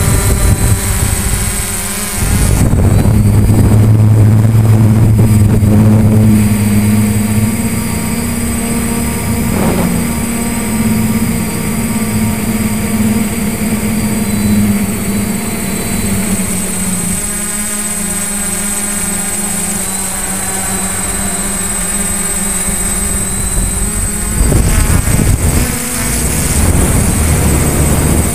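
Multirotor camera drone's motors and propellers whirring steadily, with a high whine, the pitch and loudness shifting several times as the drone manoeuvres.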